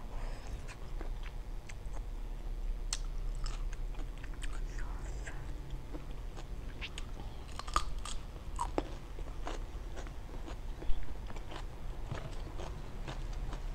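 Close-up mouth sounds of a person chewing half-cooked shrimp in a lime-dressed shrimp koi: small wet smacks and crunches scattered throughout, with one sharper, louder crunch about eleven seconds in. A low steady hum runs underneath.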